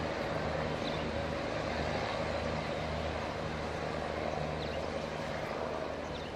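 Locomotives running slowly through a station, giving a steady mechanical hum with a low drone and a mid-pitched whine.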